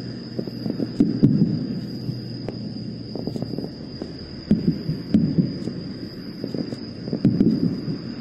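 Distant aerial fireworks bursting: clusters of low booms and crackling every second or two. A steady high tone sits behind them.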